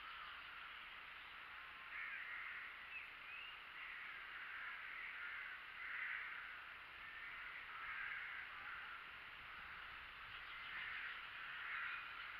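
Faint bird calls repeated every second or two over a steady hiss.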